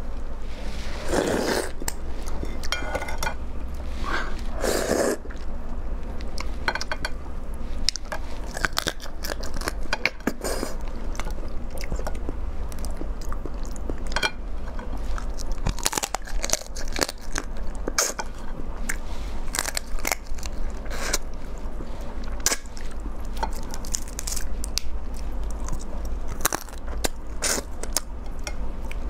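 Close-miked eating of a raw blue swimming crab: crab shell crunching and cracking under the teeth, with chewing and many short crisp snaps throughout.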